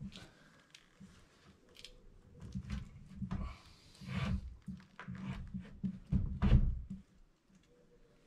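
Dull thumps, knocks and clicks as a drawer-type microwave is pushed and shifted into its cabinet opening, the unit and its metal trim bumping against the cabinet. The loudest knocks come a little over two-thirds of the way through.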